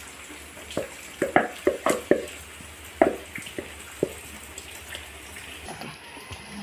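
Thick, wet batter plopping into an aluminium pot as it is scraped out of a bowl, with a run of short wet plops and light knocks of the spoon against the rims, most of them in the first four seconds.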